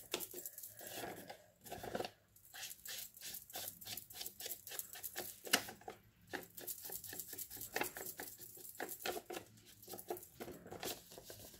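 Small foam ink applicator dabbed repeatedly along the edge of a folded book page to ink it: a quick run of soft taps, about three or four a second, with light paper rustling.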